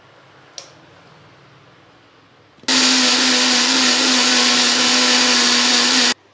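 Electric mixer grinder with a steel jar grinding a thick raw mango and mint chutney paste: a click about half a second in, then the motor runs at full speed for about three and a half seconds with a steady hum and cuts off suddenly.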